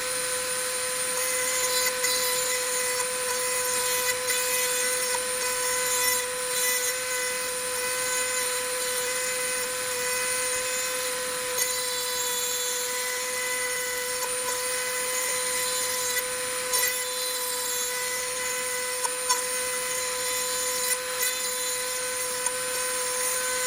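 Dremel 400 XPR rotary tool, rigged on a lathe as a tool post grinder, running at a steady high-pitched whine while grinding the workpiece, with a scratchy grinding hiss over it; these are light spring passes to finish the bore to size.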